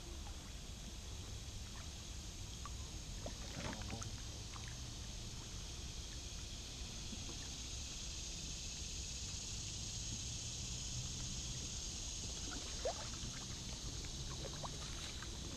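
Kayak paddle strokes in calm water: the blades dip in with faint drips and small splashes, and a sharper splash comes near the end. A steady high-pitched hiss runs underneath.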